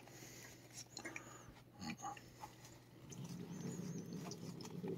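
A cat licking at a squeeze-tube treat held out in a thick work glove: faint licking with small clicks, and a low rumble from the cat over the last two seconds.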